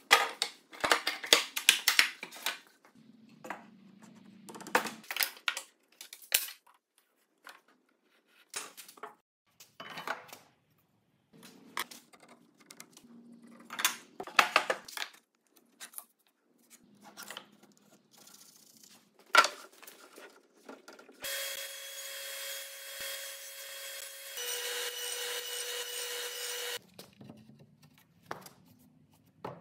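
Timber beams and braces handled on a workbench: a string of wooden knocks, scrapes and rubs. A power tool runs steadily for about five seconds near the end, its pitch changing once partway.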